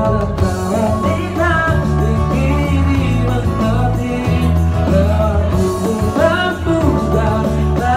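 Live band playing a pop-rock song, with a male singer singing into a microphone over a heavy bass line.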